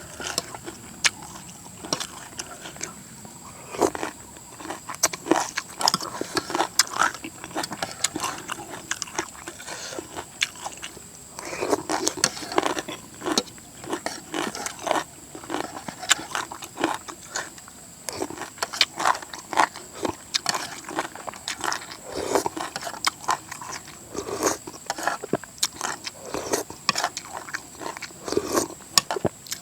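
A person eating rice noodles in coconut-milk curry up close, chewing and crunching. Many short wet clicks and smacks come at an irregular pace.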